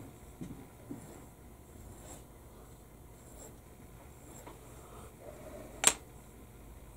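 Faint scratching and light taps of hand tools handling small model parts, with one sharp click about six seconds in.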